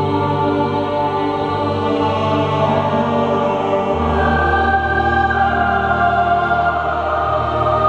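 Mixed choir of men's and women's voices singing slow, sustained chords in a large church, changing to a new chord about halfway through.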